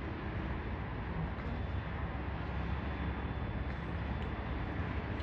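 Steady low rumble of outdoor ambient noise, with no distinct events.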